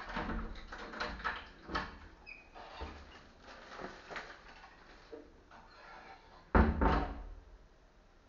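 Irregular knocks and clatter of things being handled in a kitchen, then one loud thump with a short rattle about six and a half seconds in.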